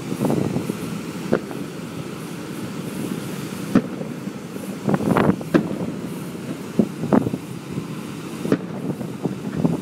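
Aerial fireworks bursting, with about eight separate bangs and a denser, louder cluster near the middle, over a steady low rumble.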